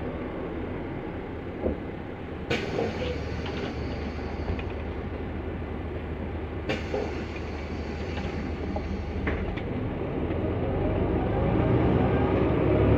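Mercedes-Benz O 405N2 city bus engine running steadily while driving, with a couple of sharp knocks or rattles. Near the end the engine note rises and gets louder as the bus accelerates.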